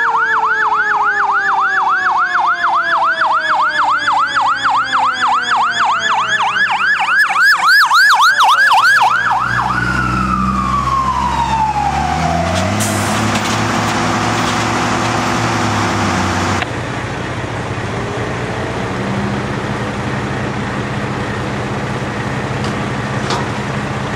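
Fire engine siren on a fast yelp, about four rises and falls a second, over a lower siren tone that slowly falls. About nine and a half seconds in the yelp stops and the siren winds down in one long falling glide, leaving the truck's engine running steadily.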